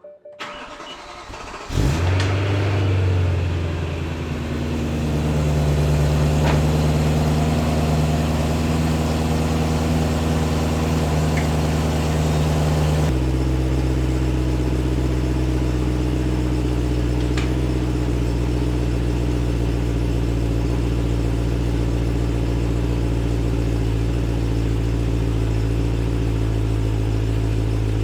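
BMW E92 M3's S65 V8 being started: it catches loudly about two seconds in and settles into a steady idle. About halfway through, the idle note changes abruptly to a deeper pitch.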